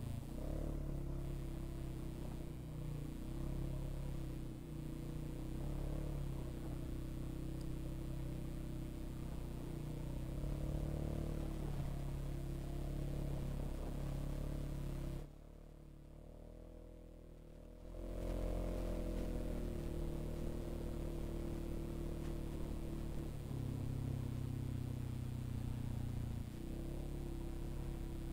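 2021 Polaris 570's single-cylinder engine running steadily under way, its note shifting slightly with the throttle. A little past the middle it drops much quieter for about three seconds, then picks up again.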